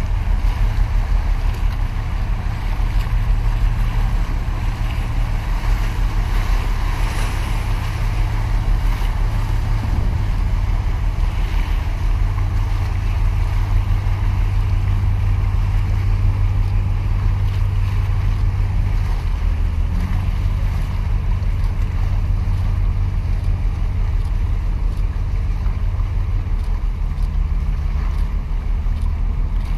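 Wind rumbling on the microphone over choppy sea water lapping and splashing against concrete breakwater tetrapods, a steady wash of noise.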